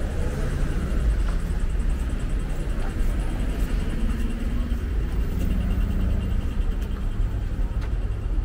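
City street traffic: a steady low rumble of a motor vehicle running close by, with a faint engine hum rising in the middle.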